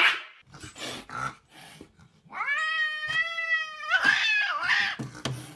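A cat yowling: a few short noisy bursts, then about two seconds in a long drawn-out cry held for over a second and a half, followed by a shorter wavering cry.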